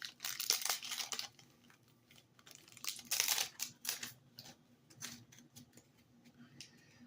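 Yu-Gi-Oh trading cards and their packaging being handled: short bursts of rustling and crinkling in the first second or so and again around three seconds in, then scattered light clicks as cards are flicked.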